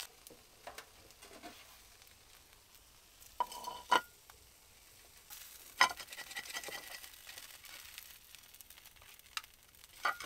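Food sizzling faintly in a pan, broken by a handful of sharp clinks and knocks of utensils on the pan and dishes. The loudest come about four and six seconds in.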